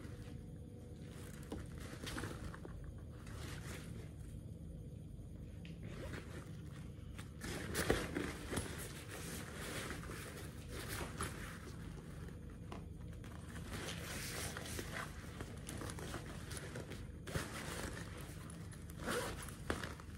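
Zippers on a second-hand backpack being pulled open and shut while the bag is handled, in scattered scratchy pulls, the loudest about eight seconds in.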